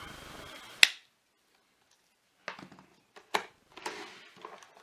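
Plastic parts of a Miele vacuum cleaner floor head being handled: a sharp click about a second in, then several scattered knocks and clicks.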